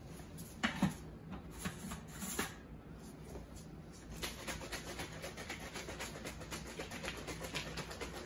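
A plastic shaker bottle shaken hard by hand to mix a protein milkshake, in a fast, even rhythm starting about four seconds in. Before that, a few knocks as the bottle is picked up and handled.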